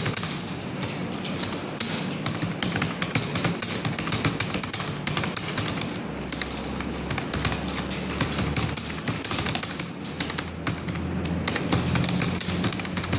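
Fast, continuous typing on a computer keyboard, many key clicks a second, during a timed typing test. Background music with low sustained notes plays under it.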